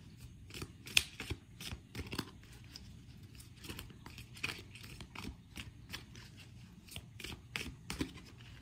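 Faint, irregular clicks and scratchy taps, a few a second, like small handling noises close to the microphone.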